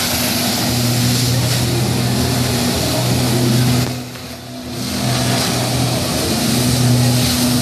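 Personal watercraft engine driving a Flyboard, running at high revs under a steady hiss of water jets. About four seconds in the engine drops away for about a second, then comes back up.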